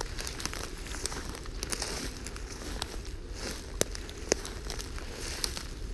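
Walking through tall dry grass and weeds: steady rustling and crackling of dry stems brushing and breaking underfoot, with scattered sharp snaps, two louder ones a little past the middle.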